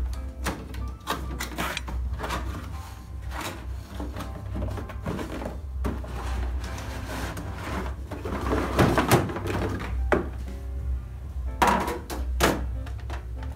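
Background music with a steady low beat, over knocks, thuds and rustling as a cardboard box is opened and tipped up and a plastic blender base is pulled out of it.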